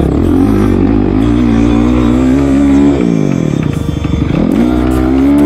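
Dirt bike engine revving hard as the bike accelerates, its pitch climbing. The throttle is chopped about three seconds in, dropping the pitch, then opened again to climb once more.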